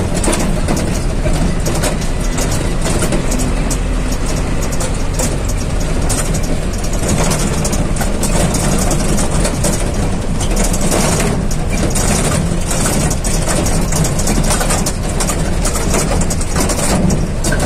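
Steady engine and road noise heard from on board a moving vehicle, with a constant low rumble and frequent short rattles.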